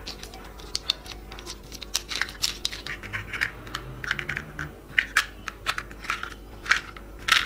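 Hard plastic toy parts clicking and tapping irregularly as a toy dump truck's yellow body is fitted onto its black chassis by hand.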